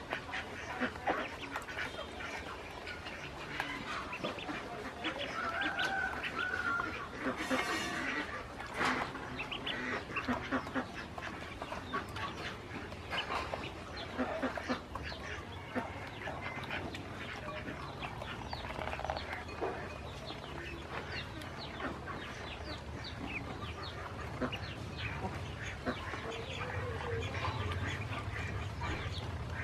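A group of ducklings peeping and chattering continuously in many short overlapping calls, with quick clicks of bills pecking at feed in a plastic basin.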